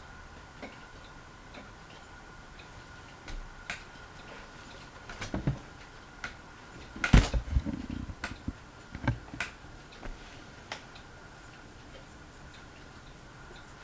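Hampton Bay Courtney ceiling fan running, with a faint steady whine and irregular ticks and clicks. A louder cluster of knocks comes about seven seconds in.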